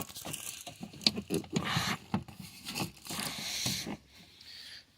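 Plastic push-pin clips being pressed back into a 2006 Toyota Sienna's door trim panel: scraping and rustling of the plastic panel with scattered sharp clicks.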